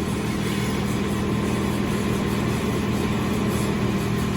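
Skid-steer loader engine running steadily, with a constant low hum that neither rises nor falls.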